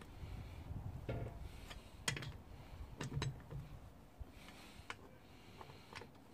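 Scattered sharp metallic clicks and ticks from a socket wrench working the wheel bolts on a van's steel wheel, with a quick cluster of clicks about two seconds in.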